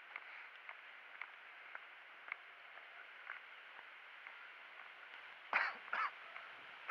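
Two loud, harsh bird calls half a second apart near the end, with a third starting just as it ends, over a steady outdoor hiss and faint scattered clicks.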